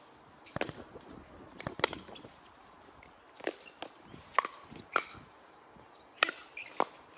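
Pickleball paddles hitting the plastic ball in a fast doubles rally: a string of sharp, hollow pops, about eight, coming every half second to a second at an uneven pace.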